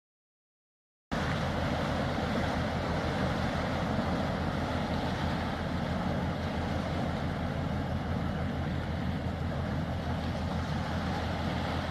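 Steady low rumble with a broad hiss from the ro-ro cargo ship's engines as she gets under way, starting suddenly about a second in.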